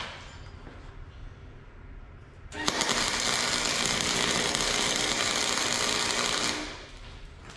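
Chicago Electric 120-volt AC arc welder running a weld on steel horseshoes: a steady crackle with a faint hum starts a few seconds in, holds for about four seconds and stops before the end.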